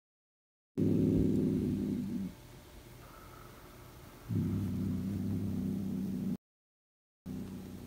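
Adult grey cat growling: long, low, steady growls, one about a second in and another about four seconds in, with a third starting near the end. It is a warning growl at an unfamiliar kitten.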